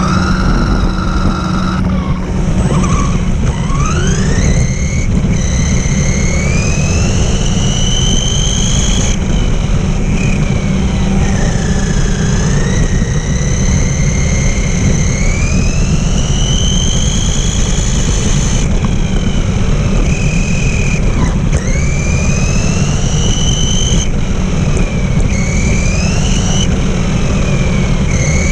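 Electric RC car's motor and drivetrain whining, the pitch rising and falling over and over as it speeds up and slows, over tyre rumble on rough concrete paving, picked up by its onboard camera.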